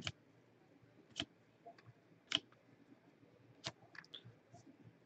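Faint, sharp clicks of trading cards being flipped and slid against one another in gloved hands: single clicks about a second apart, then a quicker run of small ticks near the end.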